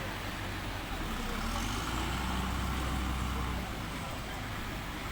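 Heavy engine running with a low hum, growing louder about a second and a half in and easing back about two seconds later.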